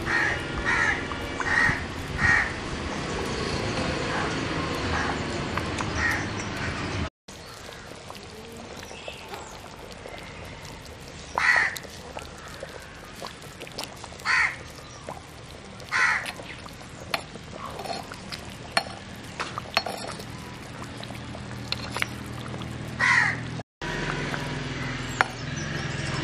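Crows cawing, single short caws every one to a few seconds, over a steady low hum that fills the first few seconds.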